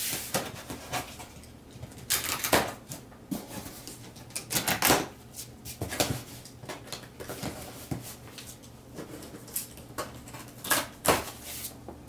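Large cardboard box being handled and opened by hand: irregular scraping, rustling and tapping of cardboard and packing tape, with a few sharper knocks.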